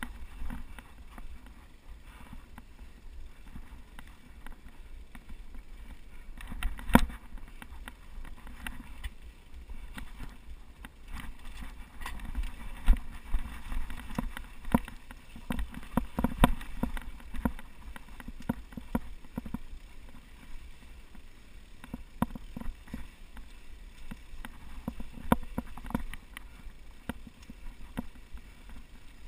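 Mountain bike riding fast down a rough dirt forest trail: a steady rumble of wind on the microphone and tyres on dirt, with the bike rattling and clattering over bumps and roots in several sharp knocks, the loudest about seven seconds in.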